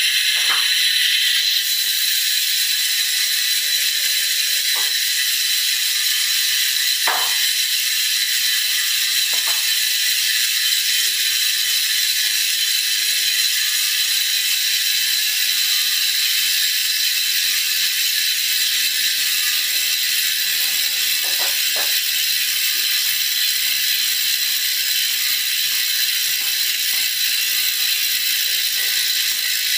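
Cycletrack CK-042 rear hub's three-pawl freehub freewheeling as the wheel spins, its pawls clicking so fast they make a steady, high ratcheting buzz.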